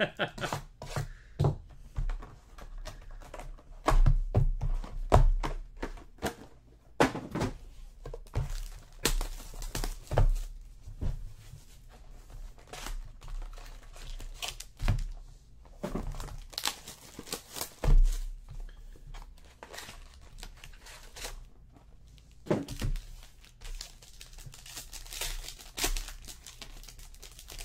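A 2014 Select Football trading card box and its packs being opened by hand: tearing and crinkling of wrappers, with irregular knocks and taps as the box, packs and cards are handled and set down on the table.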